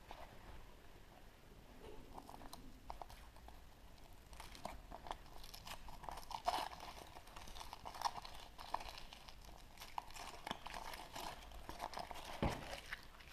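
Foil wrapper of a chocolate surprise egg crinkling and tearing as it is unwrapped, with irregular sharp crackles. A single louder knock comes near the end.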